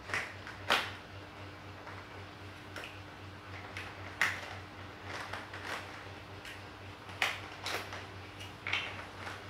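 Large plastic building blocks clicking and knocking together as they are pressed into place, in irregular sharp clicks about a second apart. A faint steady hum runs underneath.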